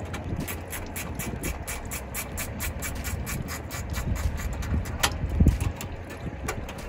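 Hand ratchet clicking in quick, repeated strokes as a bolt is loosened, with a louder knock about five seconds in.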